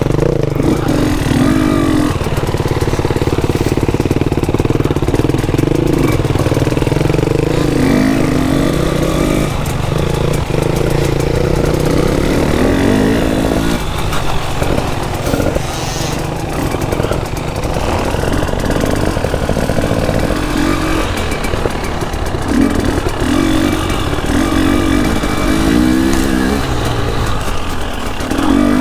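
KTM 300 EXC two-stroke enduro bike engine running under way on a trail ride, its pitch rising and falling as the throttle opens and closes.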